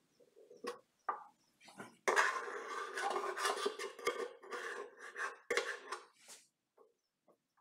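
A metal hand tool scraping and rubbing around the stainless steel flange of a garbage disposal sink drain, clearing off excess plumber's putty. A few light clicks and taps come first, then about three and a half seconds of steady scraping.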